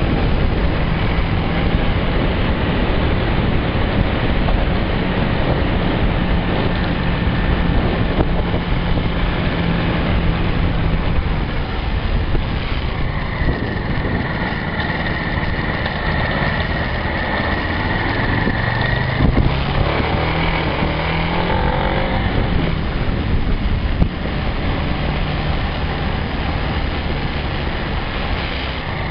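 Motorcycle engine running while riding, with wind noise on the microphone. The engine note holds steady, dips a little past ten seconds in, then climbs again a little past halfway as the bike picks up speed.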